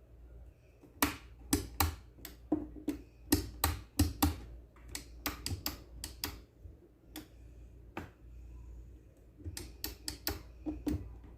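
Irregular sharp clicks and taps as a screwdriver works at the blender's small plastic safety-lock (auto) switch to check it. The clicks come in quick runs with a short pause about two-thirds of the way through.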